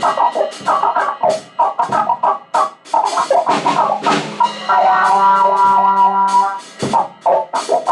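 Music: fast, irregular drum-like hits with a wah-filtered midrange tone that shifts in pitch, and a held chord from about five to six and a half seconds in.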